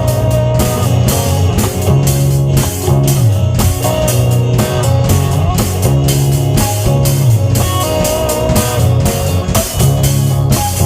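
Instrumental rock passage with electric guitar and drum kit keeping a steady beat, with no vocals.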